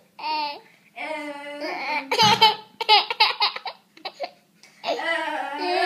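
A toddler laughing hard in repeated bursts and squealing giggles, with short breaths between fits and a brief pause about two-thirds of the way in.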